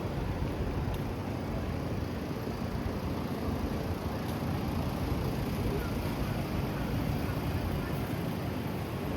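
Steady city street noise, mostly a low rumble of traffic, with no single sound standing out.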